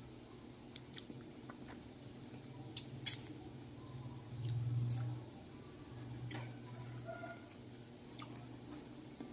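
Close-up chewing of soft, juicy sugar apple pulp: wet squishy mouth sounds with scattered sharp clicks, the two loudest about three seconds in, over a faint steady low hum.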